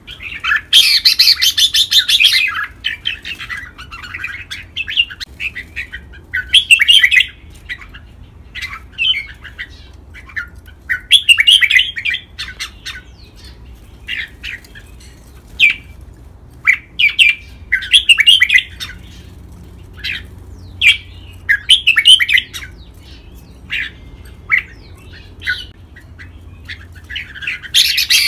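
Red-whiskered bulbuls singing: short, bright, warbling whistled phrases, loud and repeated every second or two. A burst of wing flapping comes near the end.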